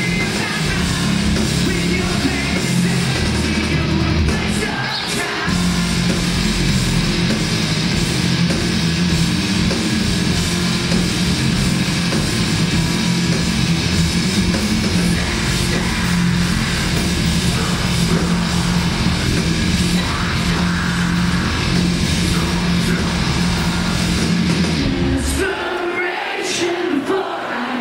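A rock band playing loud live through a club PA, with distorted electric guitars, bass and drums, and vocals mixed in. About 25 seconds in, the bass and drums drop out, leaving thinner high-pitched sound.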